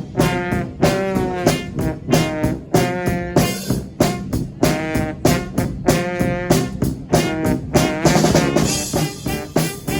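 Small brass band playing: several horns sound short phrases of notes together over a drum kit keeping a steady beat.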